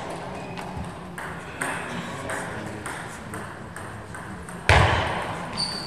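Table tennis rally: the ball clicking off the bats and the table in an irregular series of sharp ticks. About four and a half seconds in comes a sudden loud burst, the loudest sound, fading over the next second.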